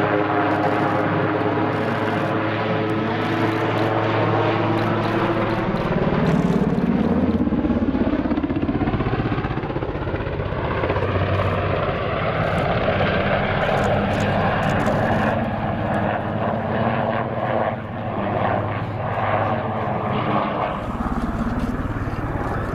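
Eurocopter AS532UL Cougar helicopter flying a low display pass: steady, loud rotor and turbine noise whose pitch shifts partway through as it passes close by.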